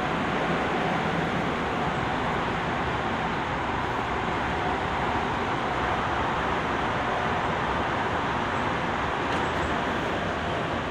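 Running noise inside a Tobu 20070 series subway train car moving through the Hibiya Line tunnel: a steady rumble and rush of wheels on rails, with a faint steady hum.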